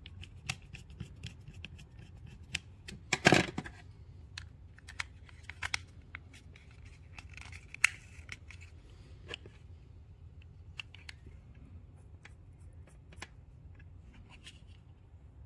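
Small plastic parts and a metal ring being handled and fitted together: scattered light clicks and taps, with a louder clatter about three seconds in.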